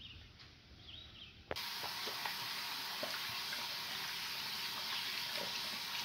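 Water running from a bathroom sink tap and splashing over hands being washed, starting abruptly about a second and a half in and then steady. Before it, a few faint bird chirps.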